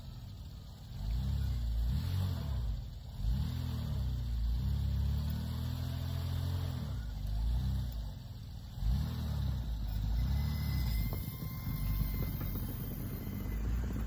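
Minivan engine revving up and down about seven times as the van reverses through deep snow.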